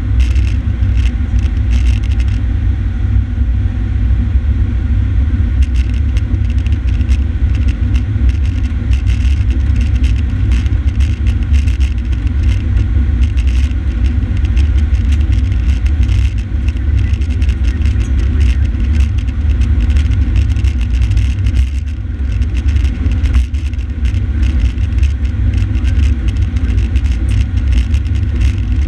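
Fire engine's diesel engine and road noise while driving at highway speed: a loud, steady low rumble with a constant light rattle over it.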